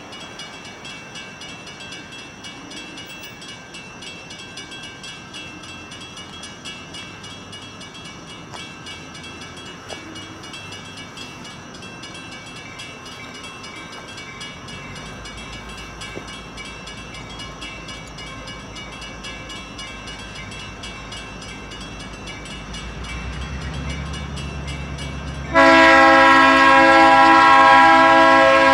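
Conrail diesel freight locomotive approaching, its low engine rumble growing over the last dozen seconds. About three seconds before the end a loud horn blast cuts in and holds.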